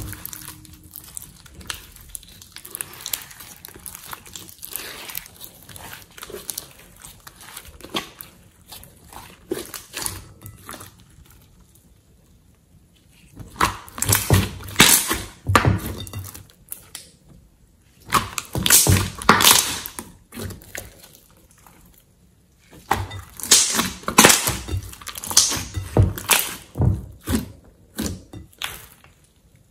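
Hands kneading and squeezing soft slime in a glass bowl: wet squishing with crackling pops of trapped air. It is soft for the first half, then comes in three loud spells in the second half.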